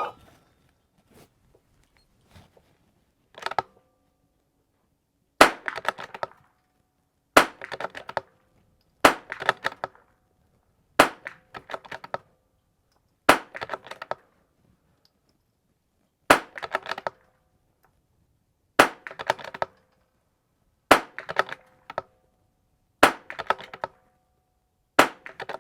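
A Vudoo bolt-action .22 rimfire rifle firing about ten shots, one roughly every two seconds, each a sharp crack followed by about a second of clicking as the bolt is worked for the next round.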